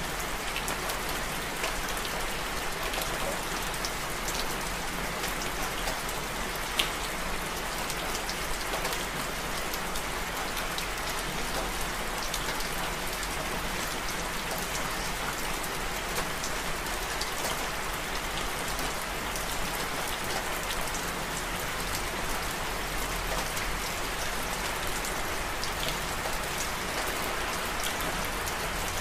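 Steady rain: an even, continuous hiss of falling rain with scattered drop ticks, and one sharper drop about seven seconds in.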